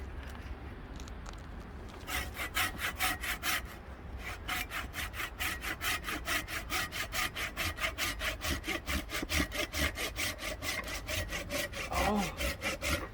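Hand saw cutting through a log of hard, dry firewood, after a short pause starting about two seconds in and going in quick, even back-and-forth strokes of about four a second.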